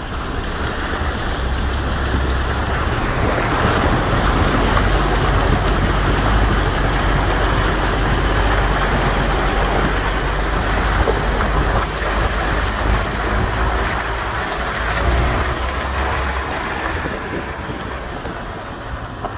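Four-wheel-drive ute fording a shallow river: water rushing and splashing against the wheels and body over a low engine rumble, the splashing easing off near the end as it drives out of the water.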